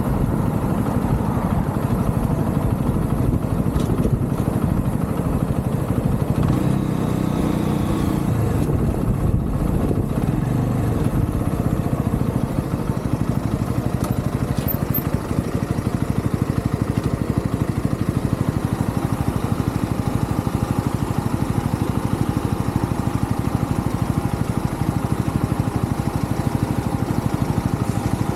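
UM Renegade Commando 125's small single-cylinder engine running steadily on the road, heard from the handlebar.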